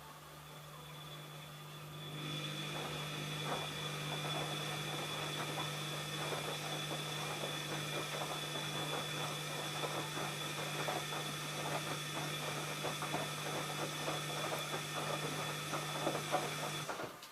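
ELIN A 100 E washing machine running: a steady motor hum with a high whine and irregular clicking and rattling, louder from about two seconds in, cutting off abruptly near the end.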